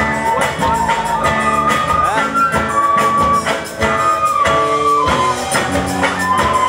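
A live youth ensemble playing: recorders carry a held, stepwise melody over strummed acoustic guitars.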